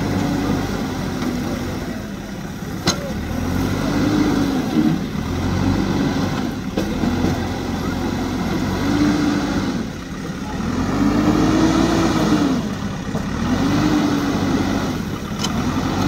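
JCB 3DX backhoe loader's diesel engine revving up and falling back over and over as the machine works its loaded front bucket through mud. A few sharp knocks sound over it.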